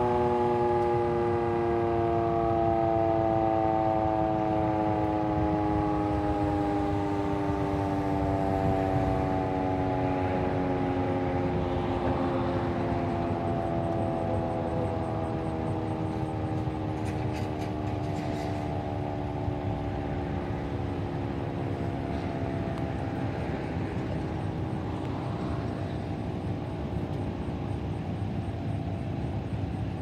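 GCS Model 3 outdoor warning siren winding down after its steady alert: its chord of tones slides slowly lower and fades as the rotor coasts down. A steady low rumble runs underneath.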